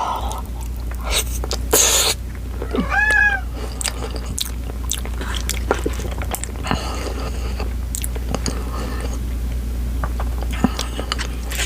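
Close-miked chewing and wet mouth smacks of a person eating a big saucy mouthful of food. A cat meows once, a short rising-and-falling call, about three seconds in.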